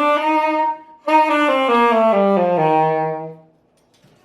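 Solo saxophone playing a Lydian mode scale, one note at a time. The top of the ascending run comes first, then a short breath, then the scale descends step by step and ends on a held low note about three and a half seconds in.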